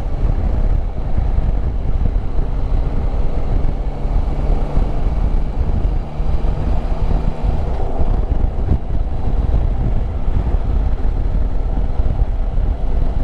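Yamaha Tracer 9 GT's 890 cc three-cylinder engine running as the motorcycle pulls away and rides along, its note shifting a few times. Low wind rumble on the helmet microphone runs under it.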